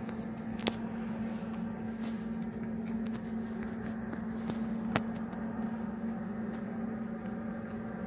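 Steady low hum of store background noise, with two sharp clicks from the phone being handled, one about a second in and one at about five seconds.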